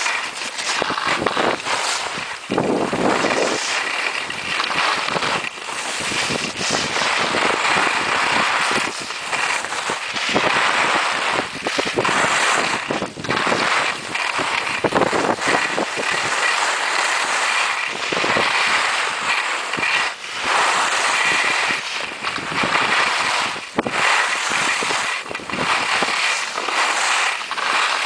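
Skis scraping over hard, icy piste snow on a downhill run, the noise swelling and easing with each turn, with wind rushing over the microphone.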